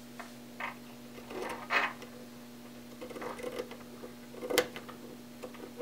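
Scissors snipping through nylon wig netting, several short, scattered cuts with pauses between them, over a faint steady hum.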